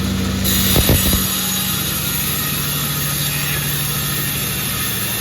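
Sawmill machine running with a steady engine hum. A higher hiss joins about half a second in, and a few knocks come near the one-second mark.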